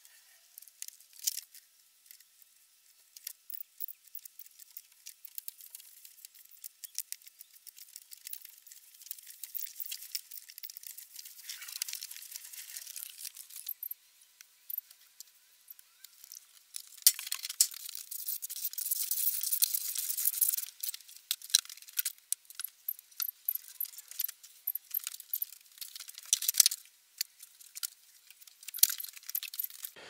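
Dense small clicks, crackles and hissing of sand and canola oil being poured and worked over the black pipes and metal fin plates of a homemade solar water heater, with two longer hissy stretches near the middle.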